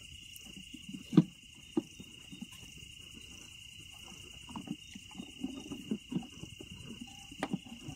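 Crickets chirring steadily in one high, even band, over scattered knocks and clatter of camp cooking pots and utensils being packed away. The sharpest knock comes about a second in, with a run of smaller clatters in the second half.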